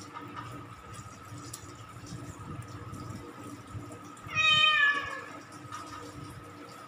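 A wet cat meows once during its bath, a single drawn-out meow that falls slightly in pitch, about four seconds in.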